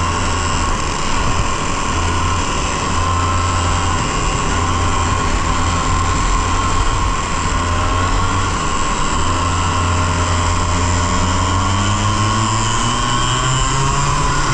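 100cc two-stroke kart engine running at low, fairly steady revs, then climbing in pitch over the last couple of seconds as the revs rise.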